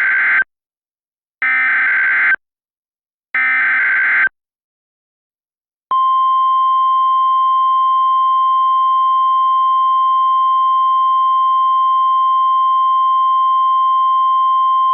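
Emergency Alert System SAME header: three one-second bursts of raspy data tones, the first already under way. After a short silence, a steady single-pitch attention tone starts about six seconds in and holds.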